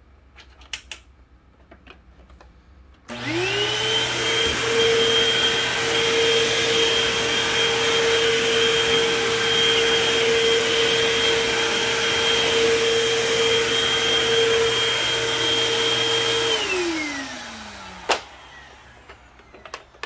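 Hoover WindTunnel Tempo bagged upright vacuum switched on about three seconds in. Its motor spins up quickly to a steady high whine and runs, then it is switched off and winds down with falling pitch. A single sharp click follows as it stops.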